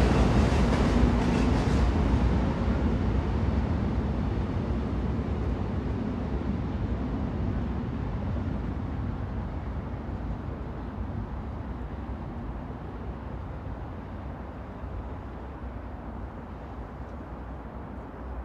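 Train running, a dense rumble that fades steadily throughout, its higher hiss dying away first and the low rumble lingering.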